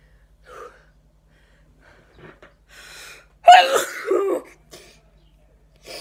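A woman sneezes once, loudly, about three and a half seconds in, after a quick in-breath; it is one sneeze in a prolonged sneezing attack.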